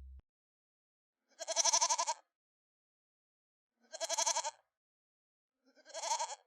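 Three short bleats, each with a quavering, wavering tone, spaced about two seconds apart.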